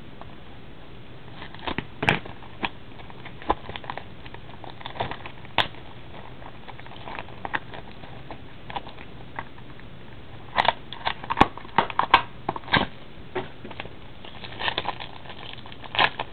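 Plastic shrink wrap and a foil trading-card pack crinkling and tearing as they are opened by hand: scattered crackles and clicks, thickest about ten to thirteen seconds in.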